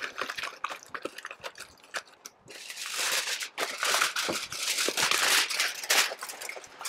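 Aluminium foil crinkling and crackling as hands fold and press it shut around meat, then handle a second sheet to double-wrap it. The crackles are sparse at first and get louder and denser about two and a half seconds in.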